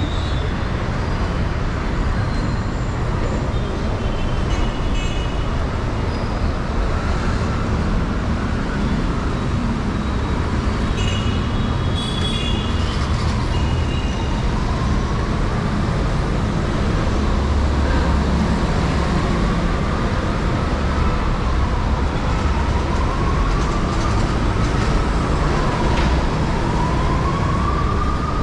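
Busy city road traffic with a steady rumble and a few short high beeps; from about halfway in, an emergency vehicle's siren wails, rising and falling slowly about every four seconds and growing louder toward the end.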